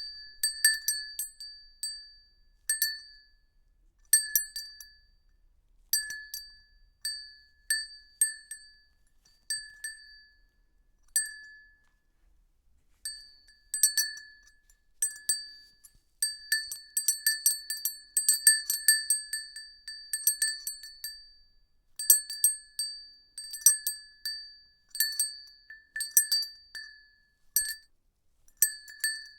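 A small high-pitched bell rung over and over in an uneven rhythm: single dings that each ring briefly and die away. After a pause of about a second and a half partway through, the dings come in quicker flurries.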